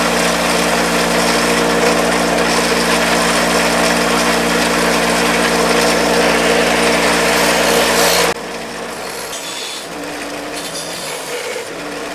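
Bench grinder running with a brass wire wheel, scrubbing white corrosion off aluminium wiper-motor parts pressed against it, a steady motor hum under dense brushing. About eight seconds in the sound drops suddenly to a quieter, uneven rubbing.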